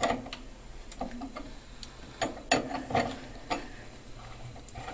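Metal spanner clicking and knocking against a chrome tap while the tap's valve mechanism is unscrewed: a string of irregular metal clicks.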